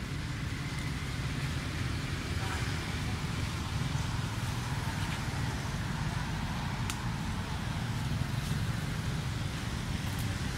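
Steady low outdoor rumble with a few faint ticks and faint distant voices.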